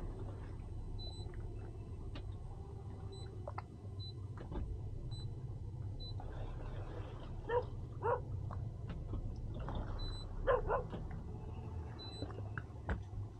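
Boat outboard engines idling with a steady low rumble. Three short, sharp bark-like calls stand out over it, two close together about seven and a half seconds in and one about ten and a half seconds in.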